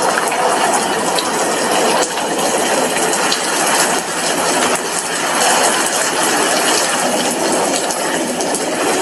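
Heavy rain falling steadily, its drops striking a glass window pane in a dense, even hiss sprinkled with small individual ticks.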